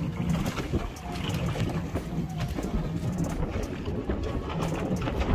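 A low steady boat engine hum with wind buffeting the microphone, and light rustles and knocks as a nylon gill net is pulled in over the gunwale.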